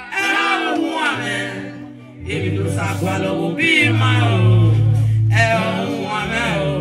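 A woman singing a gospel song live into a microphone, in phrases with short breaks between them. Backing singers and a band's steady low bass notes play under her.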